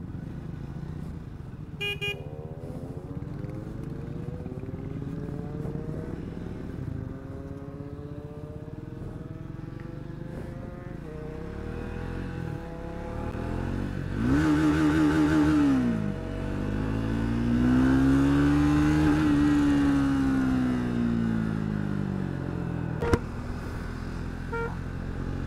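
Triumph Speed 400 single-cylinder engine accelerating through the gears, its pitch climbing in steps with each upshift over steady wind and road noise. Near the middle, two louder engine swells rise and then fall in pitch, and there is a brief toot about two seconds in.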